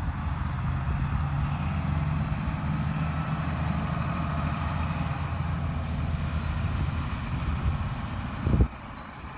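Heavy diesel engine of earthmoving machinery running steadily with a low hum. A loud thump comes near the end, after which the engine sound drops much quieter.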